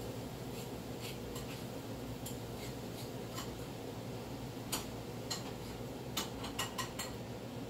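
Scattered light clicks and clinks over a steady low room hum, with a few sharper ones in quick succession in the second half.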